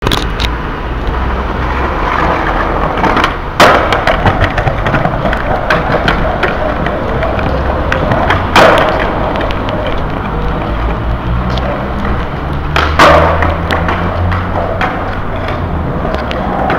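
Skateboard wheels rolling over concrete and paving, with three loud sharp cracks of the board slamming down: a little over three seconds in, about eight and a half seconds in, and about thirteen seconds in.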